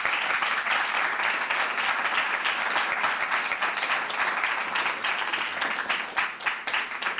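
Audience applauding steadily, the clapping thinning to scattered claps near the end.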